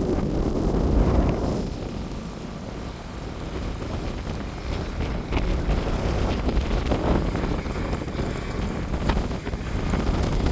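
Gusty wind buffeting the microphone during a heavy snow squall: a strong gust in the first second or so, a brief lull, then gusting picks up again toward the end.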